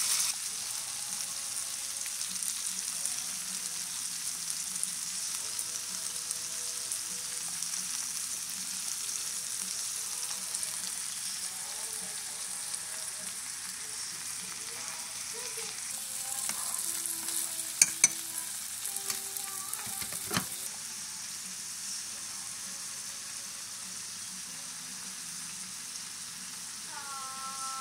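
Food frying in hot oil: chicken drumsticks sizzling steadily in a cast-iron skillet, then sliced onions and bell peppers sizzling in a pan, with the sizzle softer near the end. Two sharp clicks and a knock come about two-thirds of the way through.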